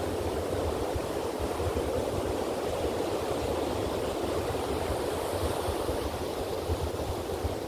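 Ocean surf washing in steadily, with wind buffeting the microphone in a flickering low rumble.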